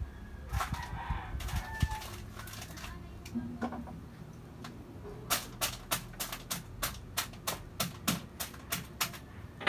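A quick, regular run of sharp knocks at the kitchen counter, about four a second, starting about halfway through. There are a few short chirp-like calls and scattered knocks near the start.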